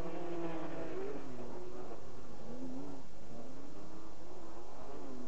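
Off-road racing pickup truck engines revving, their pitch rising and falling several times.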